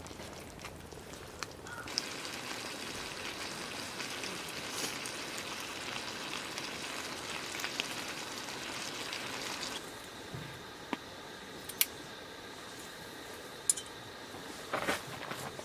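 Food sizzling in a frying pan: the sizzle starts abruptly about two seconds in and stops about ten seconds in, followed by a few sharp clicks.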